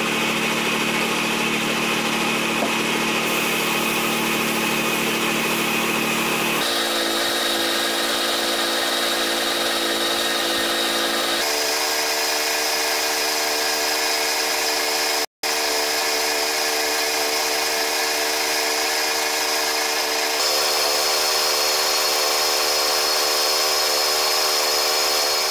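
Gravity-feed spray gun hissing with compressed air as it sprays primer onto car body panels, with a motor-driven air compressor running steadily under it. The sound changes abruptly a few times and drops out briefly about halfway.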